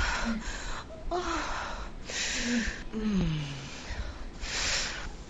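A man gasping and whimpering as if in pain: a run of sharp, breathy gasps broken by short moans, with one longer moan sliding down in pitch about three seconds in.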